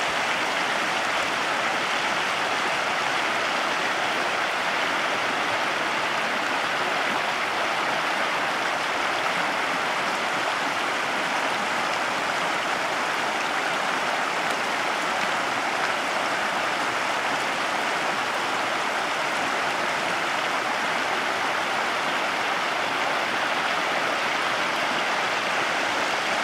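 Small rocky stream running fast over stones and shallow riffles: a steady, unbroken rush of water.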